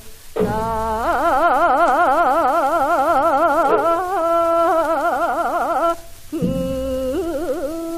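A solo voice singing Korean gasa in the Gyeonggi style, heard from an old Victor 78 rpm disc recording. Long notes are held with a wide, even vibrato and step between pitches. The voice stops briefly right at the start and again about six seconds in.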